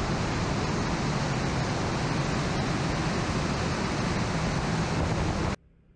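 Lilium 5th-generation demonstrator eVTOL in flight, heard from outside on the wing: a loud, steady rushing of its electric ducted fans and the airflow over the wing. It cuts off suddenly about five and a half seconds in.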